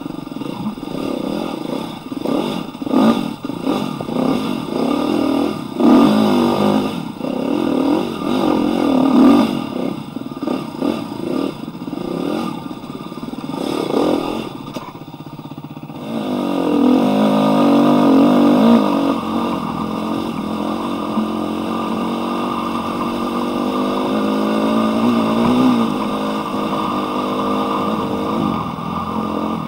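Husqvarna dirt bike engine revving unevenly in short throttle bursts, with knocks and clatter, while crawling over rocks. About halfway it settles into a steadier, smoother engine note that rises and falls gently as the bike rolls along a smooth dirt trail.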